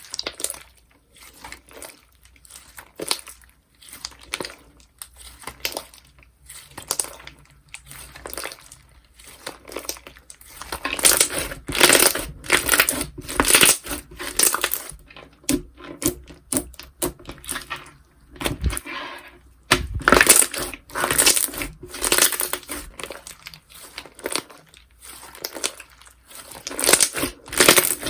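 Slime squeezed and pressed by hand, giving repeated crackly, crunchy squishes in irregular strokes that get louder and denser from about eleven seconds in.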